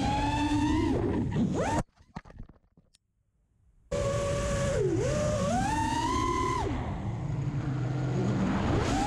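Brushless motors and propellers of a 5-inch FPV quadcopter (Armattan Velvet 2206 2300KV motors) whining, the pitch gliding up and down with the throttle. They cut off suddenly about two seconds in and start again about two seconds later.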